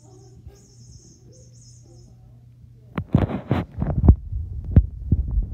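Low steady hum, then from about three seconds in a phone camera being picked up and handled: rubbing on the microphone and a run of sharp thumps and knocks.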